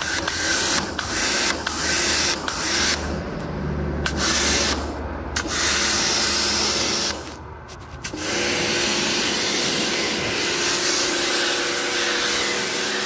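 Pressure washer jet spraying water against a washing machine's outer tub: a loud, steady hiss over a low hum, cut by a few short breaks in the first half, then running without a break.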